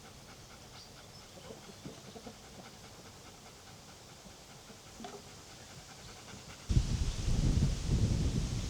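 Faint background with small scattered ticks, then a dog panting loudly close by, starting suddenly about two-thirds of the way in.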